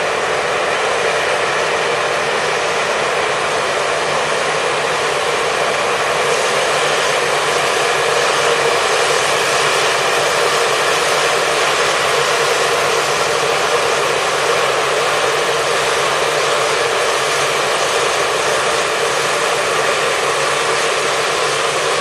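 Claas combine harvester running steadily while cutting standing crop, its engine and threshing machinery making a loud, even mechanical noise.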